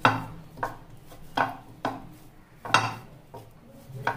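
Dough kneaded by hand in a glass baking dish, the dish giving sharp, irregular knocks about every half second as it is pushed and shifts on the counter.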